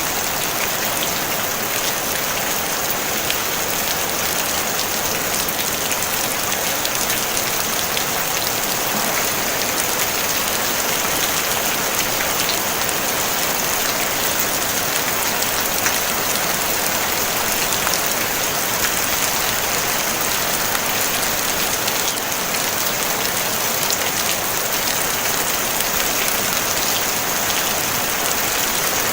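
Steady rain drumming on a tin roof: a dense, even hiss of drops with faint individual ticks, and no thunder.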